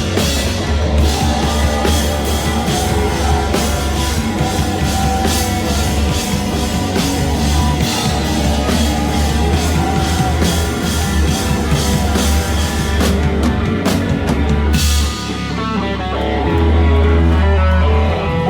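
A rock band playing live, with drums, cymbals and guitar. Near the end the drums drop out, leaving guitar and a loud held bass note.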